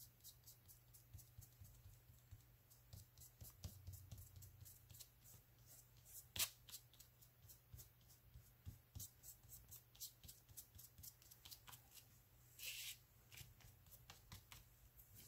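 Faint crackle and light ticks of fingers pressing and rubbing a glue-stick-backed paper scrap flat onto a paper envelope, with one sharper tick about six seconds in and a brief rustle of paper near the end.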